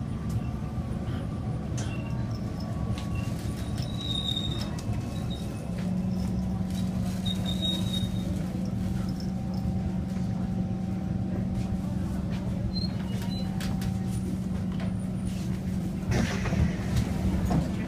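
Interior noise of a Kawasaki Heavy Industries C151 metro train car on the move: a steady rumbling hum, joined about six seconds in by a steady low drone that holds to the end. Brief voices near the end.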